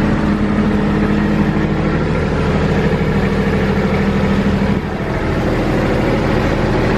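Tractor engine running steadily under way, with a short dip in level about five seconds in.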